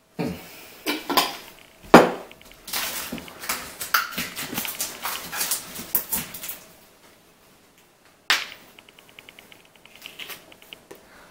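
Knocks and clatter of things being handled on a kitchen counter, the loudest a sharp knock about two seconds in. The handling goes on busily for several seconds, then stops. A single click comes a little past eight seconds in, followed by faint quick ticking.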